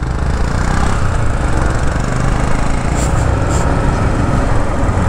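Motorcycle engines running steadily while riding along, with wind rumbling on the microphone.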